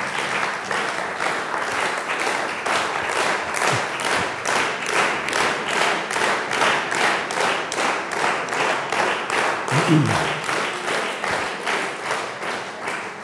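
Audience applause that turns into rhythmic clapping in unison, about three claps a second, dying away at the very end.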